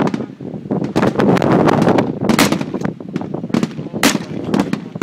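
Gunfire from several shooters on a firing range firing tracer rounds: many sharp shots at irregular intervals, overlapping one another, with heavy echo filling the gaps between reports.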